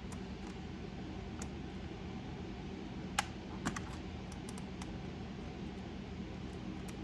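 Light, scattered clicks and taps of a small screwdriver working at the screws in a laptop's plastic base, with a sharper click about three seconds in and another just after. A steady low hum sits underneath.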